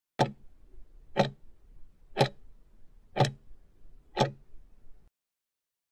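Countdown timer tick sound effect: five sharp clock-like ticks, one a second, marking the last five seconds before the time for the question runs out.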